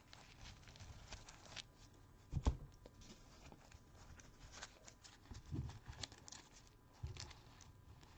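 Trading cards being handled on a table: faint rustling and small clicks with a few soft knocks, the loudest about two and a half seconds in, as the cards are gathered and set down.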